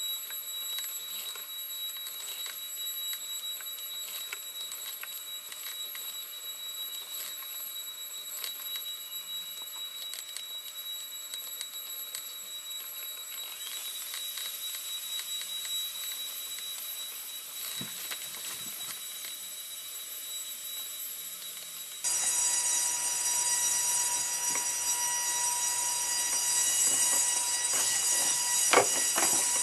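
Hexapod robot's leg servos whining as they move a pen across paper. The sound is a cluster of steady high-pitched tones with faint ticks. It turns louder about two-thirds of the way through, and a few sharp clicks come near the end.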